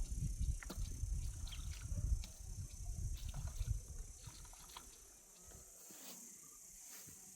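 Insects chirring steadily in the background, with scattered light clicks and rustles. Low rumbling runs through the first four seconds, then fades out.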